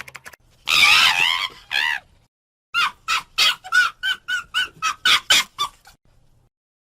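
Chicken calling: a loud wavering squawk about a second in, then a run of about ten short clucks, about three a second, that stops near the end.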